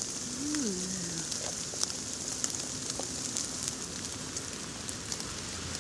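Dry pine needles, twigs and forest duff crackling in scattered sharp clicks as a large porcini is pulled out of the ground by hand, over a steady hiss.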